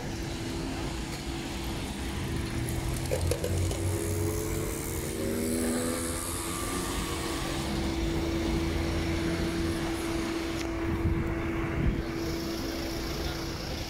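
Street traffic: a motor vehicle running close by, with a steady droning hum over a low rumble and some pitch glides as it changes speed.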